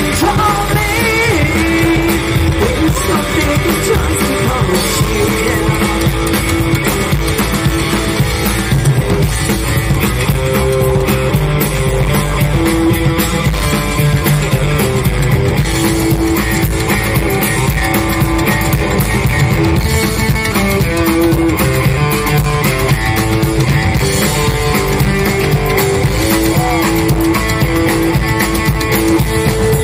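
Live band playing: electric guitar, upright double bass and drum kit, loud and continuous through the venue's PA.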